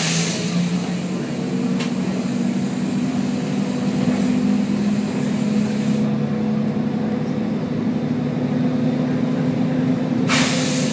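Volvo B10BLE bus engine running steadily, heard on board. A loud burst of compressed-air hissing comes right at the start and trails off about six seconds in, and another hiss starts near the end.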